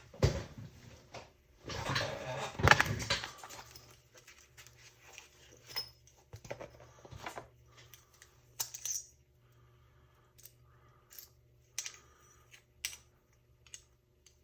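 Small tools and metal motor parts being handled on a bench: a louder stretch of handling noise about two seconds in, then scattered light clicks and clinks.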